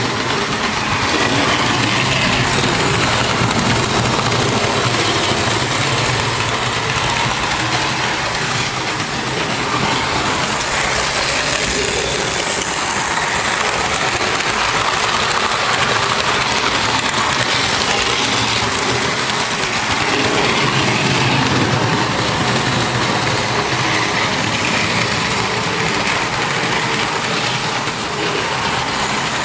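Märklin model trains running on the layout's metal track: a steady, even mechanical noise.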